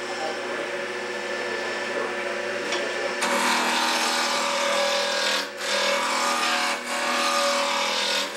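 Wood lathe running with a spindle of holly spinning, a turning tool cutting it. About three seconds in the cut gets louder and rougher as the tool bites in, with two short breaks where the tool eases off.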